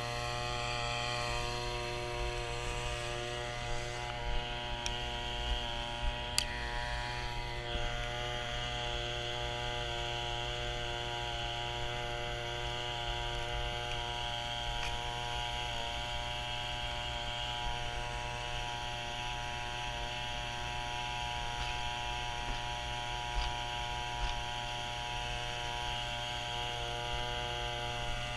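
Steady electric motor hum with a whine of several pitches held throughout, and a few light knocks.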